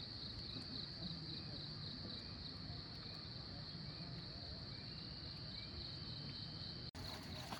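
Insect chorus, a steady high-pitched trill with faint short chirps beneath it. It drops out abruptly near the end and gives way to scattered clicks and rustling.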